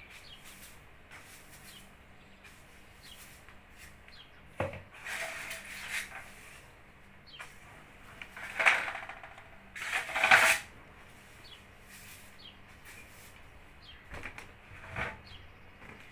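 Household handling sounds: a knock and several short scraping or rustling bursts, the loudest two about halfway through, with faint bird chirps in between.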